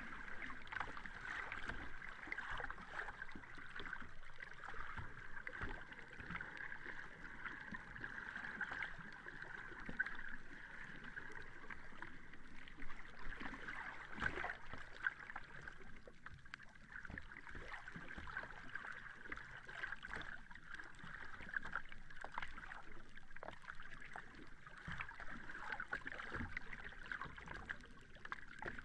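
Sea water lapping: a steady wash with many small splashes and a few louder ones.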